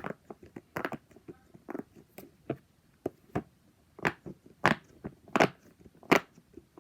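Silicone pop-it fidget toy being pressed, its bubbles popping one after another as short, sharp pops at an uneven pace, the loudest ones in the second half.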